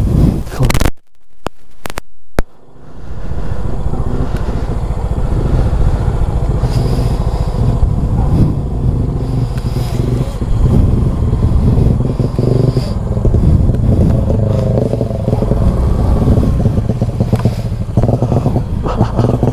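Small motor scooter engine running at low speed over a muddy, rutted dirt track, with rattling from the bike over the rough ground. The sound cuts out briefly about a second in and again about two seconds in.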